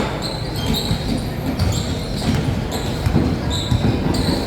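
Basketball game in a large gym: a ball bouncing on the court a few times and sneakers squeaking, over the steady rumble of the hall.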